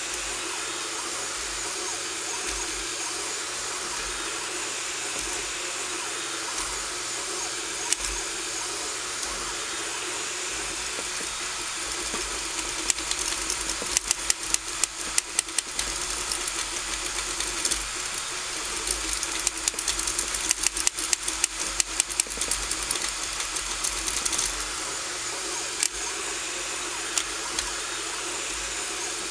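RigidBot 3D printer running a print: a steady fan hiss and the whir of stepper motors as the print head moves. Through the middle of the stretch come flurries of rapid ticks.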